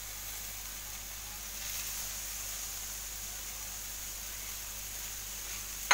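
Chopped onion sizzling steadily in butter in a frying pan as raw turkey pieces are dropped in by hand, with one sharp knock at the very end.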